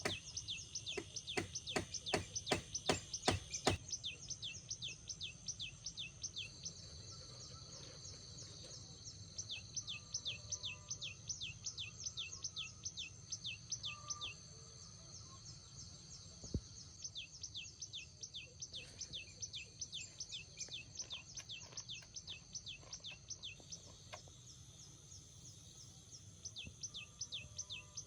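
Forest wildlife: long runs of quick, high, downward-sweeping chirps, about three or four a second, loudest in the first few seconds. A steady high-pitched whine joins in twice.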